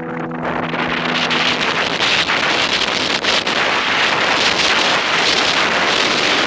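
Wind rushing over a helmet camera's microphone and mountain bike tyres rolling on a gravel dirt trail at speed, with frequent small clicks and knocks from the bike over the rough surface. The last held notes of the electronic music soundtrack fade out in the first second or two.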